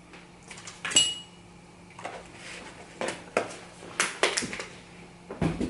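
Kitchenware being handled and set down on a counter: a series of knocks and clinks, one with a short ringing ping about a second in.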